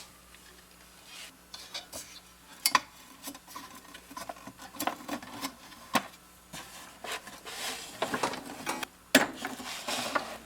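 Scattered clicks, light taps and rubbing of small metal parts and tools as a wall clock is taken apart by hand, with one sharp tap about nine seconds in.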